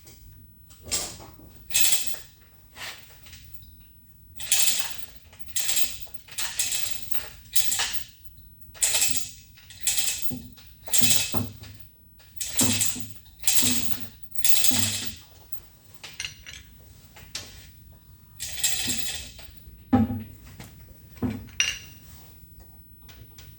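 A long, irregular run of short metallic clinks and scrapes, some with a dull thump underneath, as the Zocca 500 shaper's heavy ram is worked back into position on the machine.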